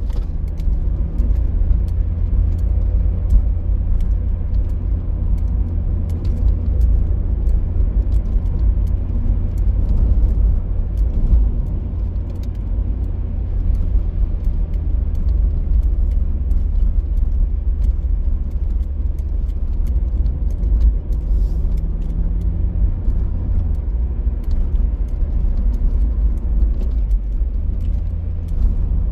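Car driving along the road: a steady, deep rumble of road and engine noise.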